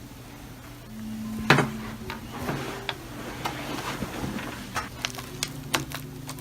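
Laptop screen parts being handled: scattered light plastic clicks and taps, with one louder knock about a second and a half in and a quick run of clicks near the end, over a faint steady hum.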